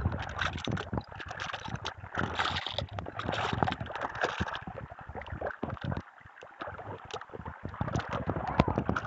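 Floodwater current rushing, with many sharp crackles over the steady noise; the sound drops quieter about halfway through.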